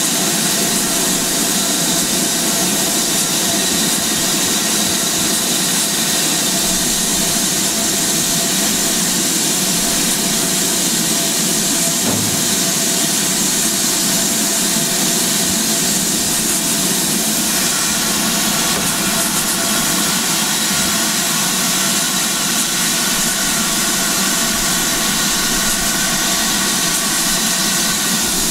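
Steady hiss of steam from a BR Standard Class 7 'Britannia' Pacific steam locomotive, with no exhaust beat; a few faint steady tones join in about two-thirds of the way through.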